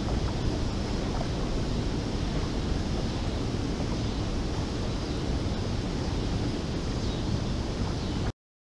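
Steady rush of water pouring through a dam spillway and churning in the tailwater below, with wind rumbling on the microphone. The sound cuts off abruptly near the end.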